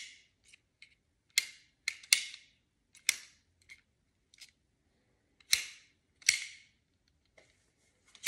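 Milwaukee Fastback folding utility knife being flipped and snapped shut over and over: about a dozen irregular sharp metal clicks, several of them much louder than the rest. The blade strikes but does not latch, bouncing back open.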